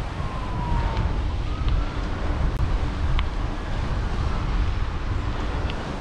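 Wind buffeting the microphone while cycling, with a faint distant siren slowly wailing up and down behind it, and a few light ticks.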